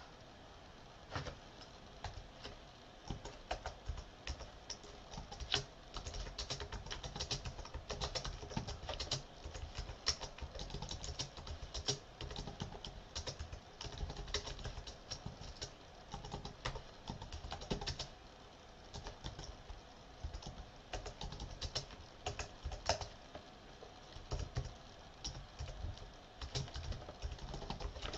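Computer keyboard typing in irregular spurts of quick key clicks, with short pauses between phrases.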